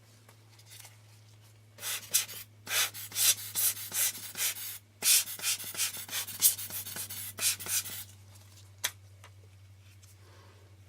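Quick, irregular rubbing and scraping strokes from hands working on a camera lens, starting about two seconds in and stopping about eight seconds in, over a low steady hum.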